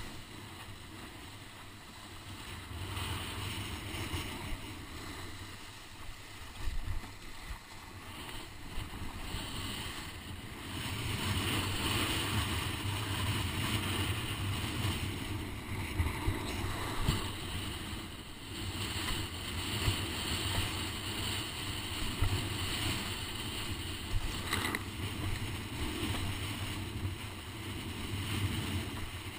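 Wind blowing across the camera microphone, mixed with the rush and slap of water against a windsurf board sailing fast in strong wind. It grows louder about ten seconds in, with occasional sharper slaps.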